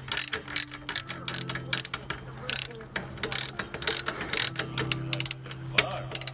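Hand ratchet clicking in quick, irregular runs of strokes while the new exhaust's fasteners on a BMW E36 are tightened.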